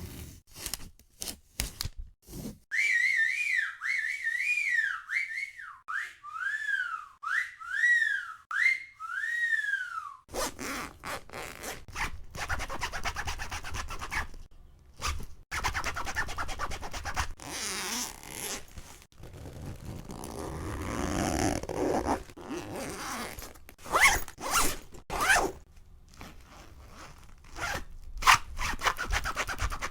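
A string of short cartoon sound effects: a run of quick whistle-like tones that each rise and fall, then a long series of rubbing and scraping noises, zipper-like, broken by short gaps.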